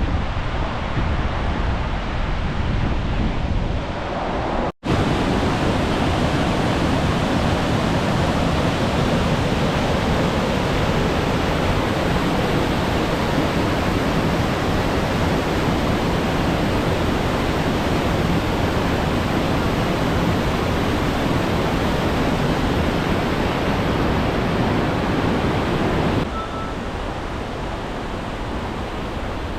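Steady rush of a tall waterfall pouring into its pool, heard close up. The sound cuts out for an instant about five seconds in and gets a little quieter near the end.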